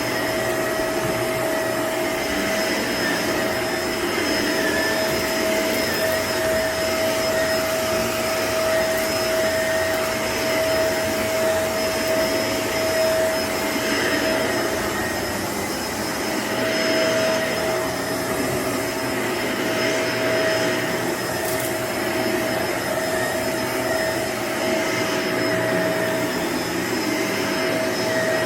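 Shark upright vacuum cleaner running steadily on a carpet, with an even motor whine over the rush of suction that swells slightly now and then as it is pushed and pulled.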